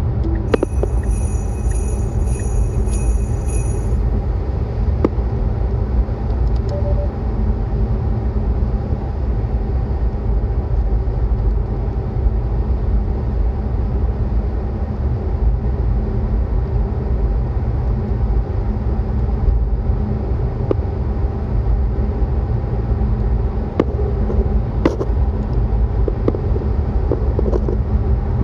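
Steady road and tyre rumble inside a Tesla's cabin at highway speed, about 105 km/h. For about three seconds near the start, a thin, high, pulsing electronic tone sounds over it.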